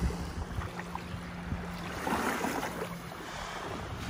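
Small, gentle waves lapping and washing up onto a sandy beach at the water's edge, with a faint steady low hum underneath.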